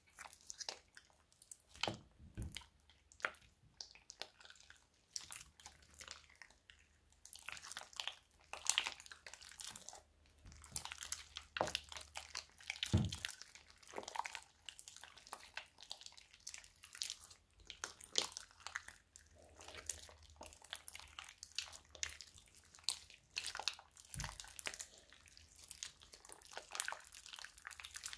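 Glossy, sticky slime with small beads mixed in, squeezed, folded and stretched by hand: a continuous run of wet squishes with irregular clicks and crackly pops.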